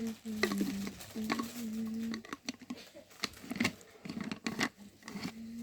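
Parcel packaging being handled and opened: a run of small clicks, taps and rustles. A steady low tone comes and goes during the first two seconds and sounds again near the end.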